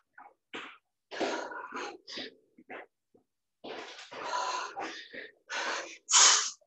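A woman breathing hard during a cardio workout, in short forceful exhales and grunts. They come in choppy bursts with silence between, the loudest near the end.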